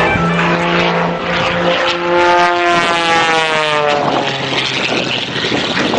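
Aircraft engine flying past, its pitch dropping as it goes by about halfway through.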